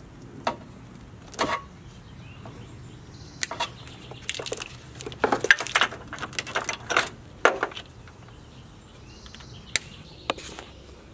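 Snowplow wiring harness in plastic split loom being pulled out by hand from behind a pickup's grille: scattered rustling, clicks and scrapes of wire and loom against the truck's plastic and metal, busiest in the middle.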